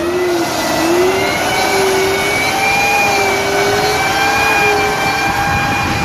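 M1 Abrams tank's gas turbine engine running with a steady high whine over a rushing hiss, its pitch wavering slightly, after a jump-start through a slave cable.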